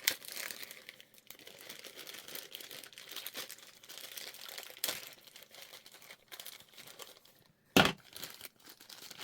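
Plastic packaging around a motherboard's SATA cables being opened and handled, crinkling and rustling throughout, with a few sharp clicks and one loud knock about eight seconds in.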